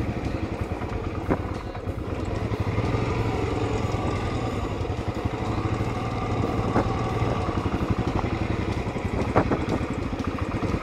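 Royal Enfield Classic 500's single-cylinder engine running steadily at low speed on a muddy dirt track, its firing pulses even and close together, with a few short clicks along the way.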